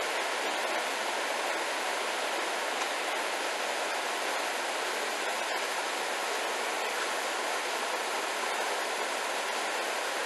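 A small stream running high after heavy rain, rushing over a little waterfall: a steady, even rush of water with no change throughout.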